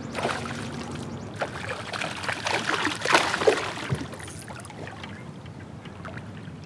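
Hooked smallmouth bass splashing at the surface beside the kayak in irregular bursts, loudest about three seconds in, then easing off as the fish stays under.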